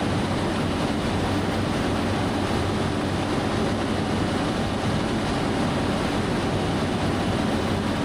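Tractor engine running steadily under a constant hiss of machinery noise.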